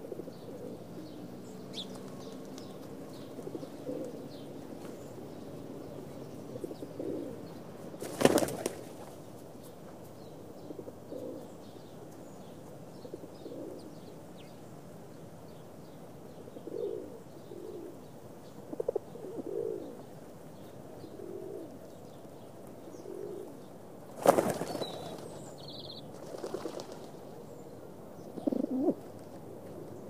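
Pigeons cooing off and on, with two loud flurries of wingbeats, about eight seconds in and again about twenty-four seconds in.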